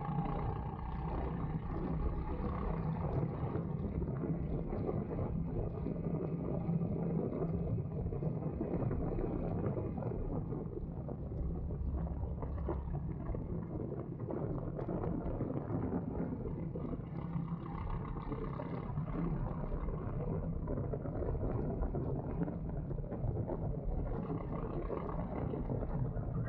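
Go-kart engine running continuously as the kart laps the track.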